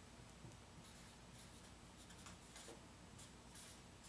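Faint strokes of a dry-erase marker writing on a whiteboard, a series of short scratchy strokes over a low room hum.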